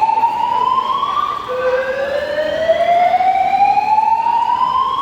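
Building evacuation alarm sounding its whoop tone: a loud, slowly rising sweep that climbs for about three and a half seconds, then drops back and starts again. One sweep ends about a second in, and the next one starts just after.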